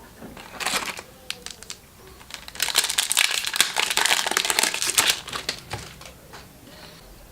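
Foil booster pack wrapper crinkling as it is opened by hand: a short burst about half a second in, then a dense stretch of crinkling from about two and a half to five seconds in that dies away after.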